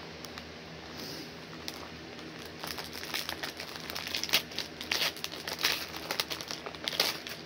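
The wrapper of a bar of soap crinkling and crackling as it is handled. The crinkling is sparse at first and grows dense from about two and a half seconds in.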